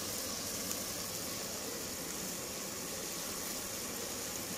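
Sliced red onions, tomato and garlic sizzling steadily in hot oil in a pan.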